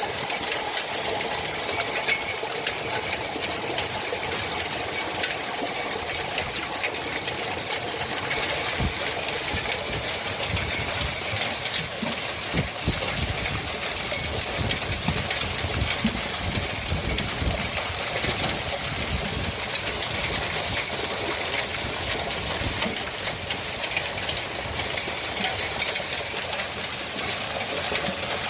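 Hailstones pelting down: a dense, continuous rattle of small impacts, with heavier thuds through the middle stretch.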